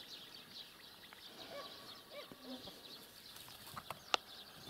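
Faint outdoor field ambience with small birds chirping and a few faint short calls, and one sharp click about four seconds in.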